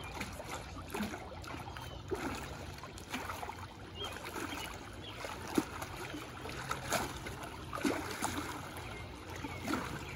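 Pool water sloshing and splashing as a kickboard is pushed through it to make waves and a person wades through waist-deep water, with irregular small splashes, the sharpest about halfway through.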